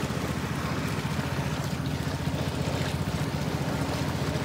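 A small engine running steadily with a rapid, even low beat, under a constant hiss.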